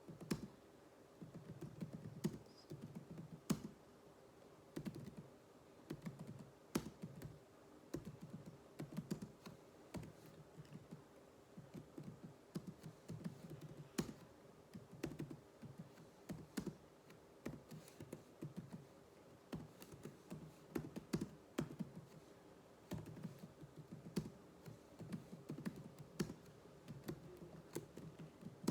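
Computer keyboard being typed on in uneven runs of keystrokes with short pauses, as in touch-typing drill practice.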